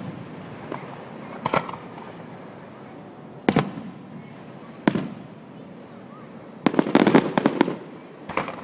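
Fireworks going off: single sharp bangs every second or two, each trailing a short echo, then a rapid crackling string of pops about seven seconds in.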